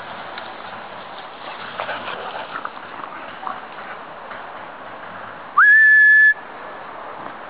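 A person whistling once to call a dog: one short, loud whistle that slides quickly up and then holds a single steady note for under a second, about two-thirds of the way in.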